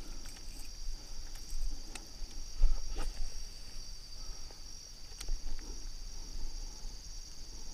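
Steady high-pitched trilling of crickets, with a few sharp clicks and low thumps on the microphone.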